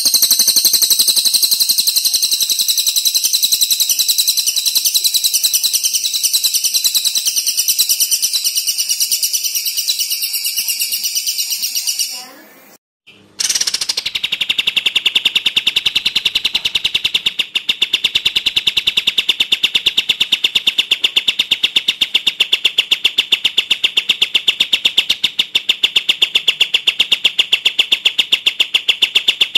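Bird-training recording of kapas tembak (olive-winged bulbul) and cililin (crested jay) calls. A rapid, high rattling trill runs for about twelve seconds, breaks off briefly, then gives way to a steady, lower rapid trill.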